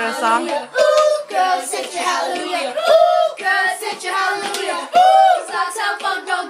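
Young boys singing, their voices sliding up and down in pitch.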